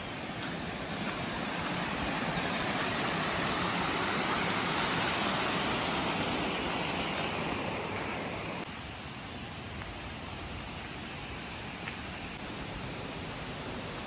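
Rushing water of a mountain stream, a steady hiss that drops suddenly in level about two-thirds of the way through.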